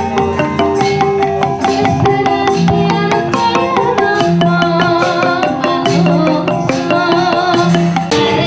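Javanese gamelan ensemble playing: bronze metal-keyed instruments ring steady pitched notes over a fast, even run of strikes.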